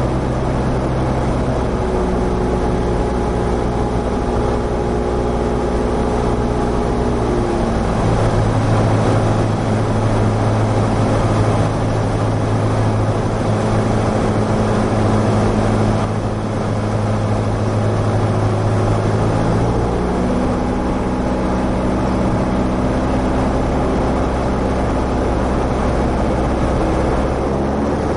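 Light aircraft's engine and propeller droning steadily, heard from inside the cabin during a landing approach. The engine note shifts about eight seconds in and again about twenty seconds in.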